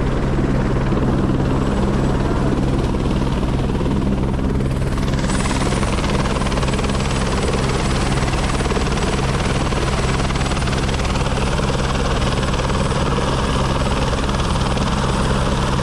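Helicopter running on the ground: a steady low rotor and engine hum, with a thin high turbine whine that comes in about five seconds in.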